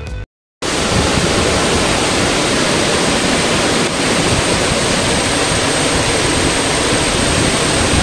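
Meenmutty waterfall in heavy flow, pouring over a rock ledge into a pool: a loud, steady, even rush of water. It starts just under a second in, after a short snatch of music cuts off.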